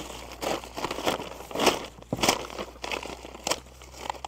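Plastic mailer bag crinkling and rustling in irregular crackles as it is handled and cut open.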